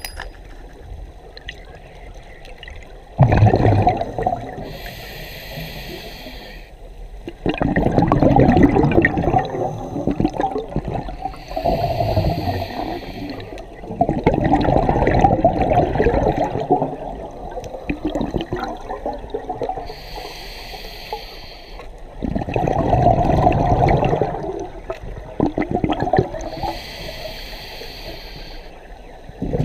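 A scuba diver's regulator breathing underwater: a short hiss on each inhale and a loud burst of bubbling exhaust on each exhale, a breath roughly every seven or eight seconds.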